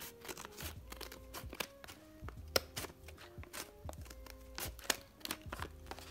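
Scissors cutting along the top edge of a paper bag: a run of short, crisp snips, with soft background music underneath.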